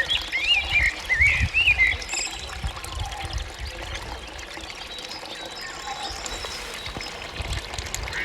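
Countryside birdsong: a bird sings quick warbling phrases for about the first two seconds, then fainter, scattered bird calls continue over a steady rushing noise with gusty low rumble.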